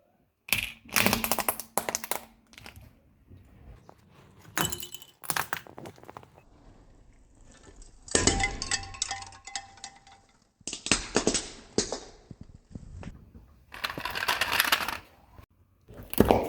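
Objects cracking and crunching as a car tyre rolls over and crushes them, in about six separate bursts with short quiet gaps between.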